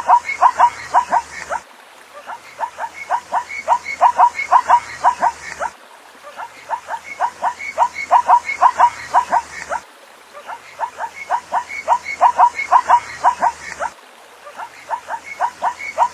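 Zebra call: a rapid run of short, pitched barking yelps lasting about three and a half seconds, then a brief pause. The same call repeats four times, every four seconds or so, as a looped recording with a steady background hiss.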